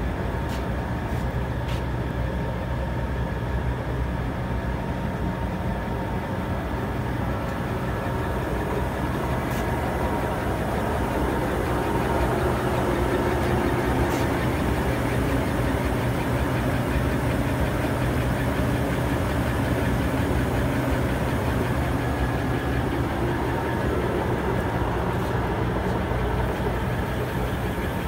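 Large 1995 Poreba heavy-duty engine lathe running under power: a steady mechanical hum of its drive motor and gearing with a faint steady tone above it, a little louder in the middle.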